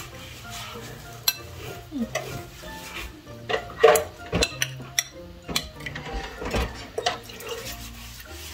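Hands working a brown sugar mixture over banana slices in a glass bowl: scattered light clinks and knocks of the glass bowl being tipped and set down, with soft rubbing of fingers in the sugar. The loudest knocks come about halfway through.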